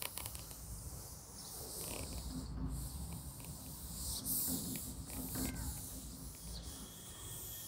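A cloth duster wiping a chalkboard: a faint rubbing hiss that swells and eases with the strokes.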